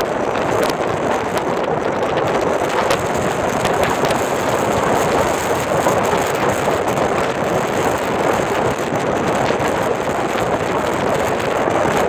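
Strong storm wind in a blizzard buffeting the microphone: a loud, steady rushing noise, with scattered faint ticks through it.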